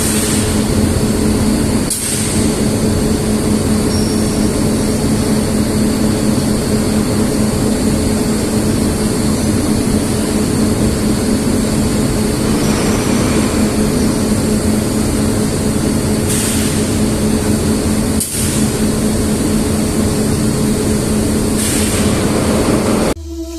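Steady heavy machinery running with a constant low hum, broken by a few short knocks.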